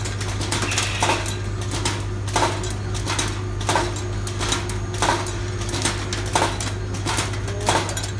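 Brake pad pillow-packing machine running, with a steady low hum and a sharp clack repeating about every second and a third, one per machine cycle, among lighter clicks and rattles.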